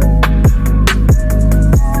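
Electronic background music with a steady beat: kick drum and hi-hat ticks over a held bass and synth notes.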